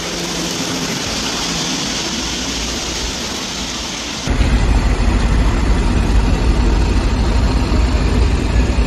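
A steady hiss of noise, then an abrupt cut about four seconds in to a louder, low, steady rumble of a heavy vehicle's engine running, from a flatbed tow truck.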